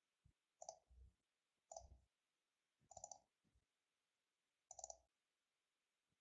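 Four faint computer-mouse clicks, irregularly spaced over about four seconds, each with a soft low thud, in near silence.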